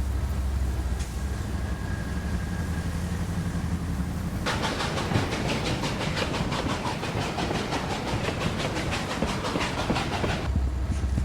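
Hand-made foley of a steam locomotive running: a steady low rumble, then about four and a half seconds in a fast, even chuffing and clacking rhythm of about five strokes a second, which drops back to the low rumble near the end.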